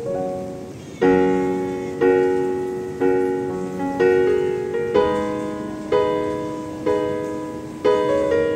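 Background piano music: soft chords struck about once a second, each fading away before the next.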